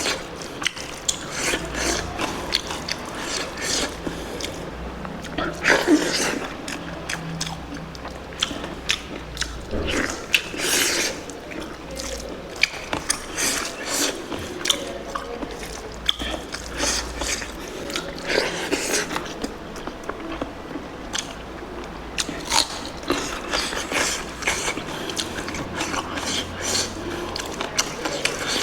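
Close-miked chewing and crunching of spicy pork curry: a dense run of quick, crackly clicks and wet mouth sounds as the food is bitten and chewed.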